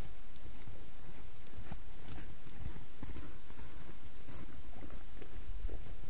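Elk walking through deep snow, their hooves crunching in irregular footfalls, over a steady low rumble of wind on the trail camera's microphone.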